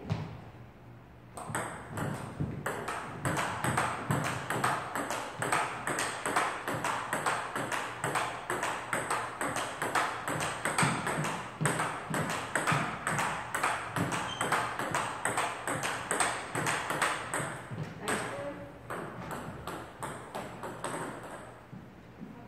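Table tennis rally: the ball clicks off the paddles and bounces on the table top in a quick, even rhythm of about four clicks a second. It starts about a second in, runs steadily, and thins out to a few scattered hits near the end.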